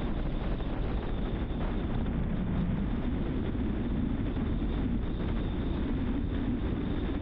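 Steady road noise of a car driving at speed: a constant low rumble of tyres on tarmac mixed with wind noise, unchanging throughout.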